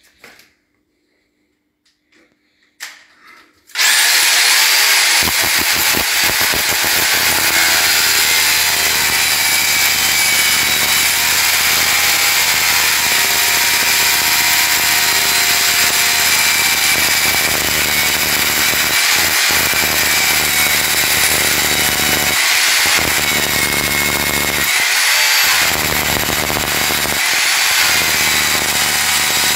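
Corded hammer drill with a long bit boring into a plastered masonry wall, starting about four seconds in and then running steadily under load. It dips briefly a few times in the second half.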